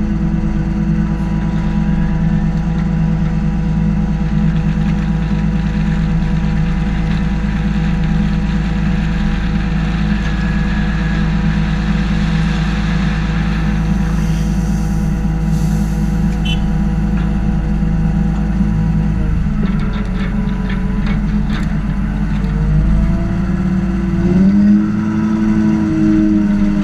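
Heavy diesel engine running at a steady idle, with a burst of gravel pouring from an excavator bucket into a steel dump-truck bed about halfway through and scattered stone clicks after it. Near the end the engine pitch rises and falls as it revs.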